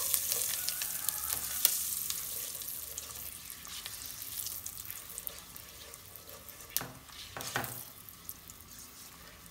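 Whole cumin seeds and a bay leaf sizzling in hot butter and olive oil, stirred with a spatula. The sizzle fades steadily, and there are two louder knocks about seven seconds in.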